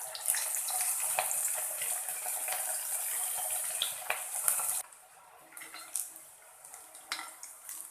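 Chicken Manchurian balls deep-frying in hot sunflower oil, sizzling steadily. The sizzle drops off sharply about five seconds in, leaving a quieter hiss with a few light clicks.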